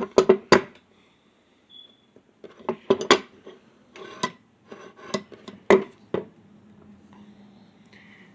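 Heavy steel pipe wrench pliers being handled: a run of sharp metallic clacks and clinks, about eight in the first six seconds, then only faint rubbing.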